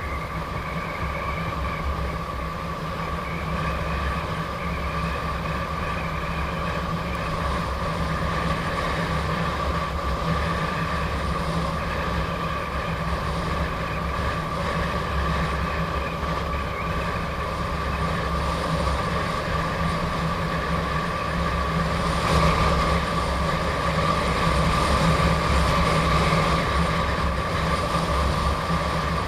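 Gotway MSP electric unicycle riding at speed: a steady whine from its hub motor over a gusty low rumble of wind on the microphone and road noise, growing slightly louder about three quarters of the way in.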